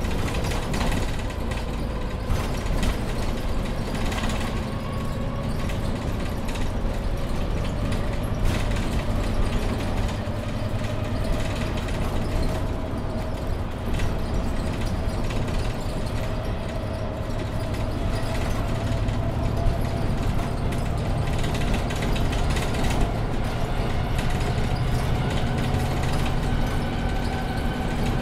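Mercedes-Benz Citaro C2 Ü Hybrid bus with a Voith automatic gearbox, heard from the passenger cabin while driving: a low engine and drivetrain rumble with a faint whine that rises slowly in pitch, and scattered rattles and clicks from the cabin fittings.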